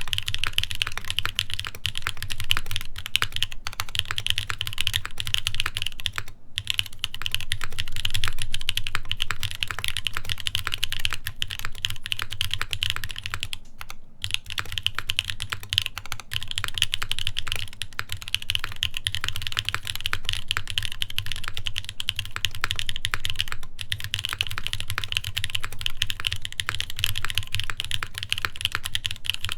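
Continuous typing on an Iron180 custom mechanical keyboard with Epsilon switches lubed with Krytox 205g0, on a full carbon-fibre plate with GMK keycaps. There are two brief pauses, about six and fourteen seconds in.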